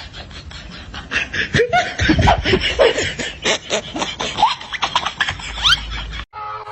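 People laughing in many short bursts, cutting off abruptly near the end.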